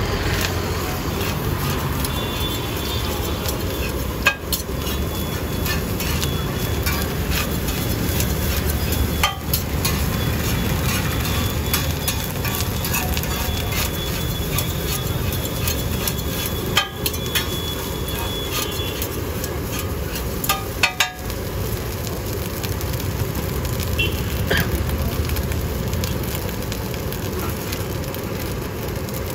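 Fried rice cooking on a street-stall gas burner: the burner flame rushing steadily under a sizzling wok. The sound breaks off for an instant four or five times.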